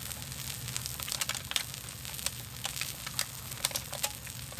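Pork belly sizzling on a hot grill plate, with irregular sharp pops and crackles of spitting fat.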